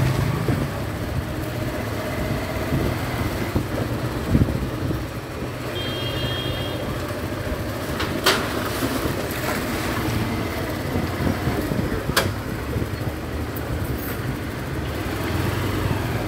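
Motorcycle engine running steadily at low speed, with wind noise on the microphone. Two sharp clicks come about eight and twelve seconds in, and a brief high tone about six seconds in.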